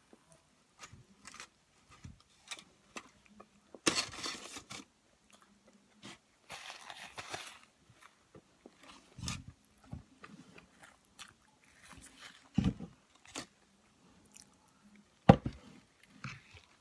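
Close-up eating sounds of a person biting and chewing a burrito, with wet mouth clicks and two crunchy stretches about 4 and 7 seconds in. A few dull knocks come through, the sharpest near the end.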